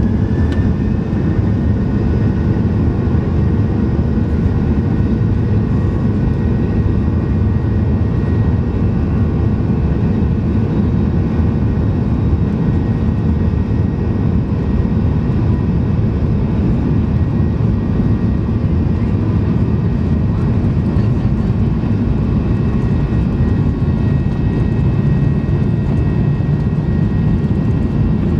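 Boeing 737-800's CFM56-7B turbofan engines at takeoff thrust, heard from inside the cabin: loud, steady engine noise with a high fan whine that finishes rising in pitch about half a second in and then holds.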